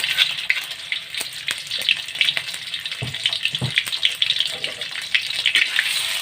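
Spices frying in hot cooking oil: a steady sizzle with constant crackling pops, and a couple of dull knocks about halfway through.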